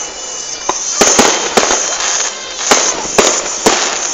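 Aerial fireworks exploding, with sharp bangs every half second or so, some in quick doubles, over a continuous crackle of bursting shells.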